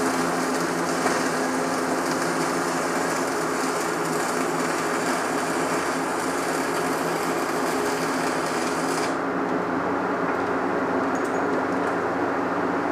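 Stick-welding arc crackling steadily as a bead is run with the Tweco Fabricator 141i inverter welder. The crackle cuts off about nine seconds in as the arc is broken, leaving a steady low hum.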